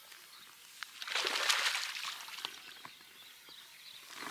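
Water splashing as a hooked pike is brought to the surface and landed: a burst of splashing about a second in that lasts about a second, a few drips after it, and more splashing starting near the end.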